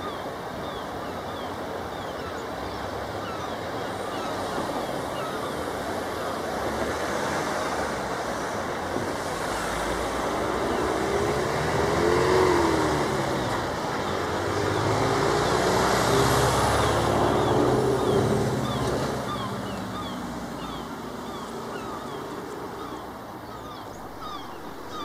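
Class 156 Sprinter diesel multiple unit pulling out and accelerating away, its underfloor diesel engines running under power. The engine note swells to its loudest about halfway through, then fades as the train draws off.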